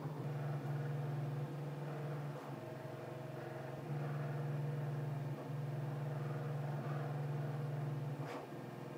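Bambu Lab P1S 3D printer running, a low steady hum that steps up and down in level every second or so, with a faint tick near the end. The printer sits on a stone paver over a foam base to damp its noise, which holds its measured peak to 53.1 dB.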